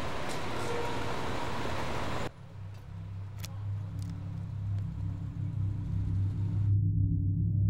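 Steady hiss of traffic on a rain-wet street, cutting off abruptly about two seconds in. Then a low, droning hum of music swells slowly, with two small metallic clicks of a key going into a mailbox lock.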